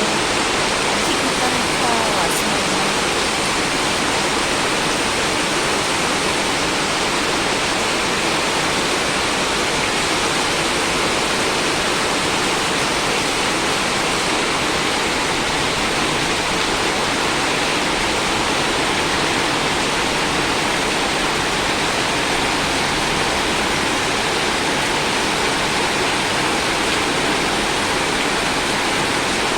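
Heavy rain pouring down in a loud, steady, unbroken hiss.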